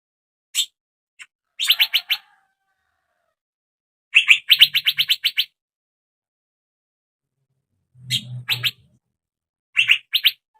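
Young male Asian fairy-bluebird giving bursts of sharp chirps: a single note, then quick runs of several rapid notes, with short silent pauses between.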